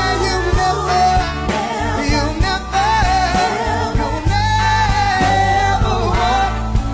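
A singer holding long, wavering notes with short melodic runs, over band accompaniment with steady low bass notes.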